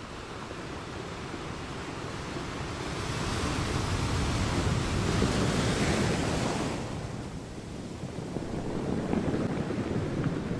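Ocean surf: a wave swells and washes in from about three seconds in and fades by about seven seconds, and a smaller one follows near the end.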